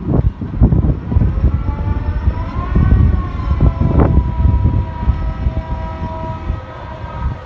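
Wind buffeting the microphone with a heavy, uneven rumble. Over it a distant high whine rises and falls once about three seconds in, then holds steady.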